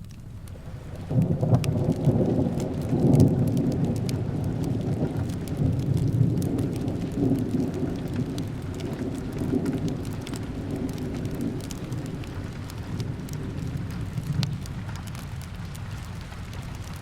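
A roll of thunder starts suddenly about a second in, rumbling low and slowly fading over the next dozen seconds, over steady rain with scattered small crackles.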